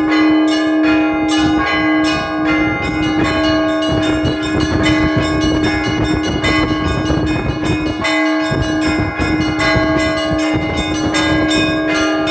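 Church bells rung as a zvon by one ringer: several bells struck in a quick, steady rhythm over the constant hum of one ringing bell. The low, heavy strokes drop out for a moment about eight seconds in, then resume.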